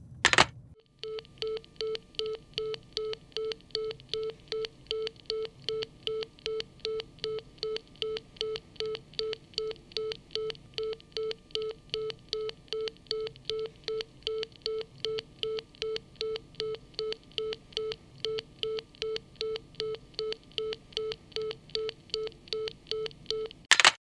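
Telephone handset lifted with a loud clunk, then a telephone busy tone beeping evenly about twice a second. It ends with another clunk near the end.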